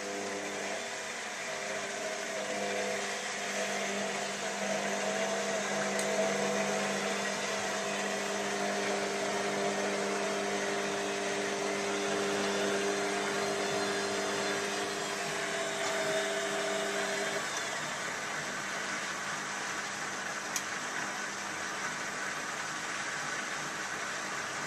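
Beko WM5101W front-loading washing machine filling with water at the start of a Synthetics 40 °C cycle: a steady rush of water with a humming tone over it, and the hum stops about two-thirds of the way through while the rush goes on.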